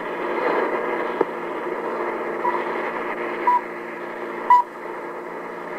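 Shortwave broadcast heard through static: a steady hiss with faint hum tones, then three short beeps one second apart, the last one the loudest.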